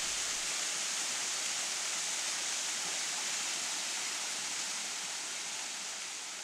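Steady rushing hiss with no tone or rhythm, slowly fading toward the end.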